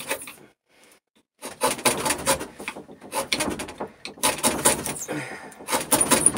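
Chisel driven two-handed into birch to chop out the waste of a joint: crisp crunching and crackling of wood fibres in several bursts, with a short pause about half a second in.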